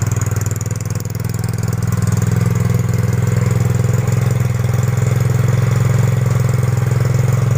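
Yamaha Mio GT scooter's fuel-injected single-cylinder engine idling steadily, its idle speed set too high, high enough to keep the rear wheel turning.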